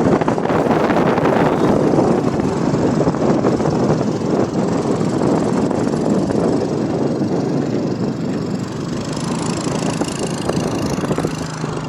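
Steady running noise of a car on the move heard from inside: engine and road noise with wind rushing past.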